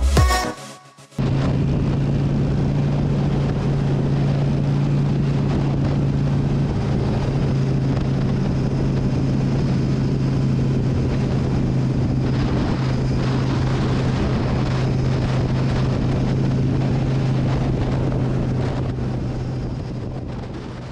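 Motorcycle engine running at a steady speed while riding, a constant low hum under rushing wind noise on the microphone. It starts about a second in and fades away near the end.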